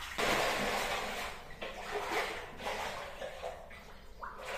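Water splashing and sloshing as people wade and grope through shallow water inside a brick-lined tunnel. It starts suddenly, is loudest in the first second, then comes in uneven surges.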